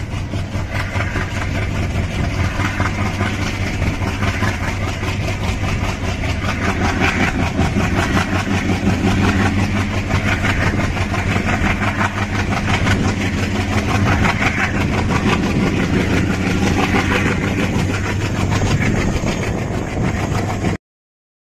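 Diesel locomotive engine working hard under load at the head of a passenger train, heard from a window of a moving coach, steady and loud with a constant low hum; it cuts off abruptly near the end.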